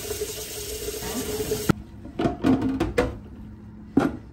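Kitchen tap running into a glass pitcher in a stainless-steel sink, cutting off suddenly a little under two seconds in. Then come clinks and knocks of a glass jar being handled at the sink, with a sharp knock near the end.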